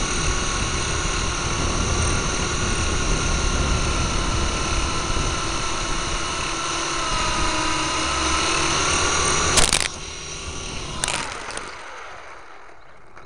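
Syma S022 Chinook toy RC helicopter's electric motors and rotors whining steadily, heard from a camera mounted on the helicopter with wind buffeting the microphone. About ten seconds in it hits the ground with a sharp knock, strikes again a second later, and the motor whine falls in pitch and dies away: a crash landing in the grass.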